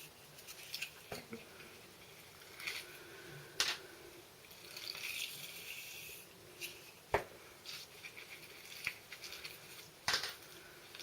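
Hair rollers being pulled out of set hair: soft rustling of hair against the rollers, with a few sharp plastic clicks about a second and a half to three seconds apart.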